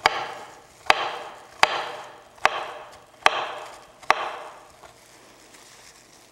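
Knife chopping through raw carrots on a cutting board: six hard chops, a little under a second apart, each with a short ringing tail. The chopping stops about four seconds in.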